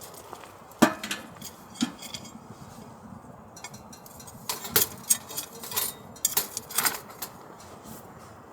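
Metal cookware and utensils clinking and knocking as they are handled: two sharp knocks in the first two seconds, then a quick run of clinks in the second half.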